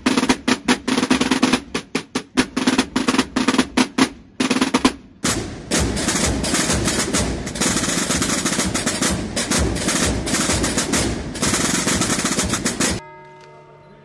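Holy Week processional drums beaten with wooden sticks: a fast march beat of separate strokes, then about five seconds in a dense, unbroken drum roll. The drumming cuts off about a second before the end, leaving a faint steady ringing tone.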